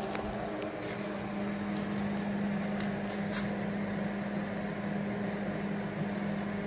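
Steady mechanical hum holding one low tone over a faint haze, with a few light clicks.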